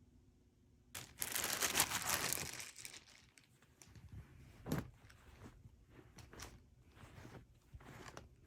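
Crinkling and rustling, as of packaging being handled: a loud stretch of about two seconds a second in, then scattered short crackles and clicks.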